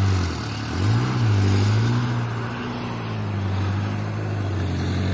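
Diesel engine of a dump truck laden with red soil, revving under load as it drives over soft ground; the engine note dips and then climbs again about a second in before settling to a steady pull.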